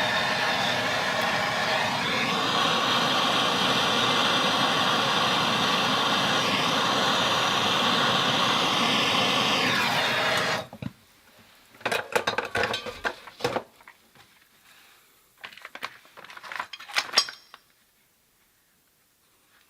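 MAPP gas torch burning with a steady hiss while heating a copper pipe fitting for soldering, shut off abruptly about ten seconds in. It is followed by two short runs of metal clinks and knocks.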